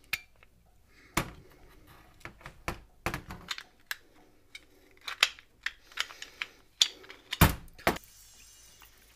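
Metal clicks, clinks and knocks as brake shoes and their return springs are worked off a motorcycle drum-brake backing plate and the parts are set down on a steel workbench. Two louder knocks come close together near the end.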